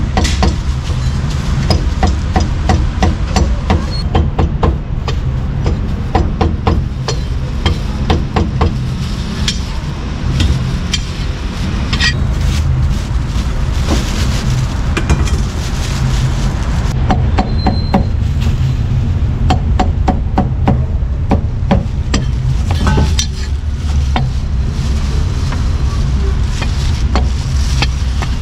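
Heavy meat cleaver chopping roast meat on a thick round wooden chopping block: quick runs of sharp knocks with short pauses between, over a steady low rumble.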